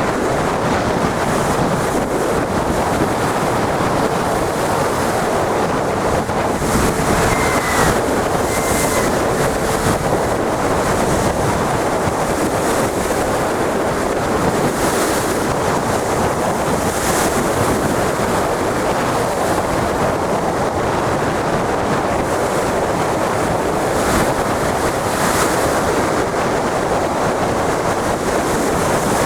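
Big sea waves breaking and washing, with wind buffeting the microphone. The noise is loud and steady, with hissing surges every few seconds as waves break.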